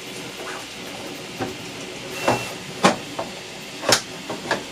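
About five sharp clicks and knocks as 3D printer parts are handled and seated together, the loudest about three and four seconds in, over a steady background hiss.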